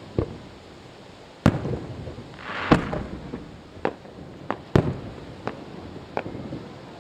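Aerial fireworks shells bursting: about eight sharp bangs at uneven intervals, each with a short echoing tail. A brief hiss comes just before one of the loudest bangs, about three seconds in.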